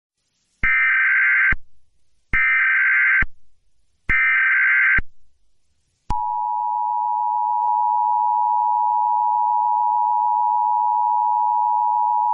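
Emergency Alert System SAME header: three bursts of warbling data tones, about a second each, followed about six seconds in by the steady two-tone EAS attention signal.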